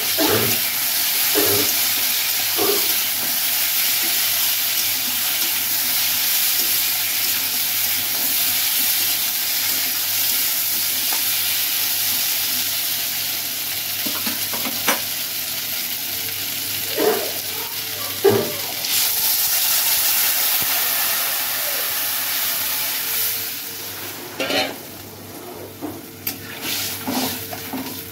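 Chopped vegetables sizzling in hot oil in an aluminium kadai, stirred with a metal spatula that scrapes and knocks against the pan now and then. The sizzling dies down near the end, as water goes into the pan.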